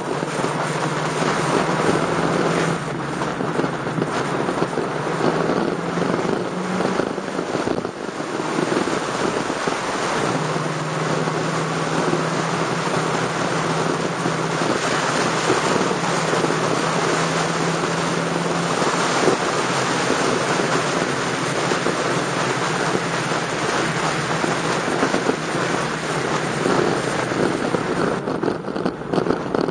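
Motorcycle riding fast along a road: heavy wind rush over the microphone covers the engine, whose steady cruising note comes and goes underneath.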